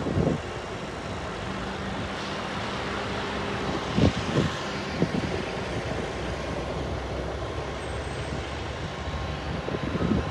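A steady engine drone over a rushing noise, broken by a few sharp cracks about four to five seconds in and again near the end.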